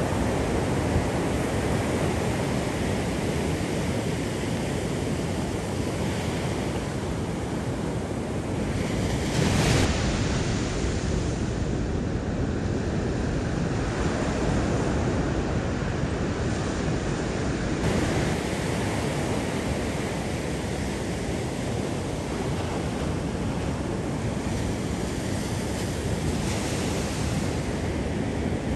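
Ocean surf washing on a beach, with wind buffeting the microphone; a louder rush of surf about nine to ten seconds in.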